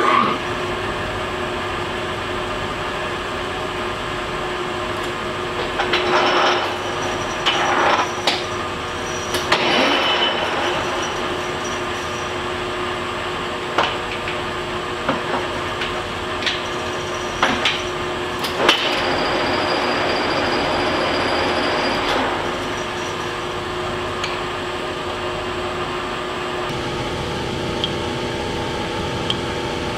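Geared-head engine lathe starting up and running, set up to single-point cut a 3/8-24 thread: a steady gear hum with several sharp clunks and clicks from about six to nineteen seconds in.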